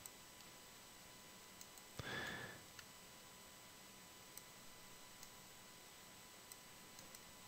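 Near silence: room tone with a few faint clicks of a computer mouse and a short soft hiss about two seconds in.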